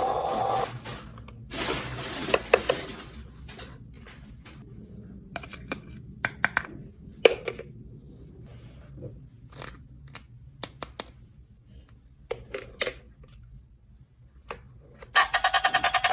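Small plastic toy pieces being handled and set down: scattered light clicks and taps, with a short rustle about two seconds in.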